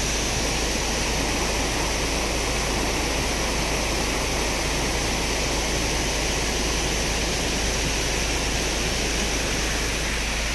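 Floodwater rushing across a road after heavy rain: a steady, unbroken rushing of water.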